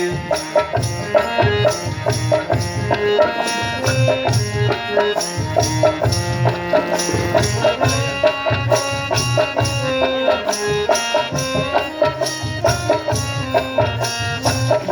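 Instrumental interlude of Indian folk-style music between sung verses: a drum beating a steady rhythm under a melodic line of held notes.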